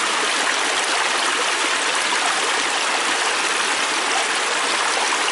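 Fast-flowing river stream rushing steadily over rocks, an even, unbroken hiss of moving water.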